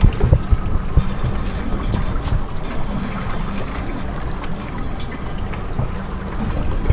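Water sloshing and trickling against the side of a drifting boat, over a low steady rumble of wind on the microphone, with a few dull thumps near the start and about a second in.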